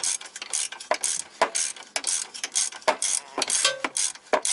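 Hand ratchet clicking in quick short strokes as it turns the sway bar end link fastener loose, while a wrench holds the nut from spinning.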